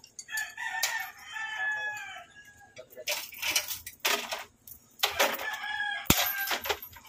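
A rooster crows twice, a long crow in the first few seconds and a shorter one near the end, over sharp metallic clanks and rattles from the hand chain of a chain hoist being pulled.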